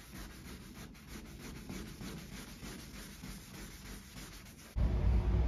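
Hand wet-sanding of single-stage paint with a 1000-grit sanding pad on a truck hood: soft, repeated rubbing strokes as the orange peel is cut down flat. Near the end a steady low rumble starts suddenly and is louder than the sanding.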